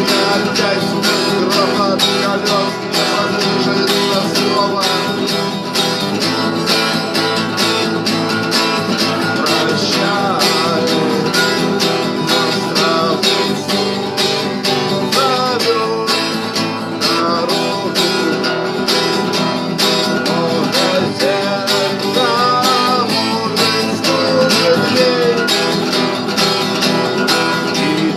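Acoustic guitar strummed in a quick, steady rhythm, playing a song.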